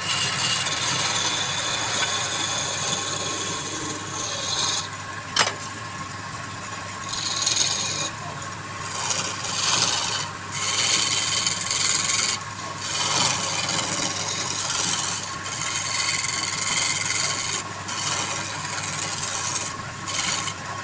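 Wood spinning on a lathe being worked with a hand-held tool: a scraping hiss that comes and goes in passes of a second or two, over the steady hum of the lathe. A single sharp tick sounds about five seconds in.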